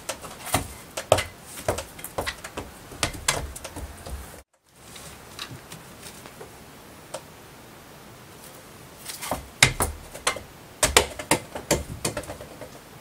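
Irregular light knocks and taps from a cat batting a small toy basketball around a carpeted cat tree, the ball dropping through the net and the cat's paws scrabbling on the post and platform. The taps come in quick clusters at the start and again for a few seconds near the end, with a brief dropout a few seconds in.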